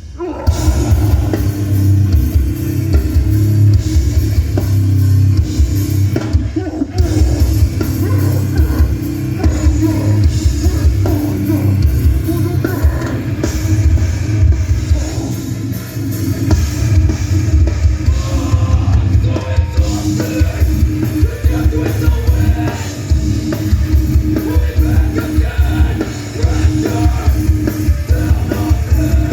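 Live heavy hardcore band playing loud through a PA: pounding drum kit and heavily distorted guitars, with shouted vocals at times, as recorded on a phone in the crowd.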